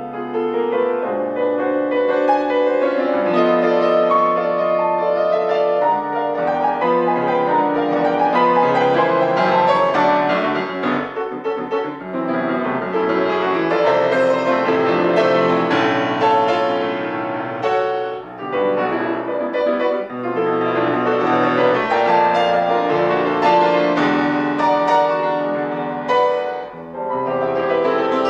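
Solo grand piano playing classical music: dense, loud chords and runs spread across a wide range of the keyboard, easing briefly twice, about two-thirds of the way through and near the end.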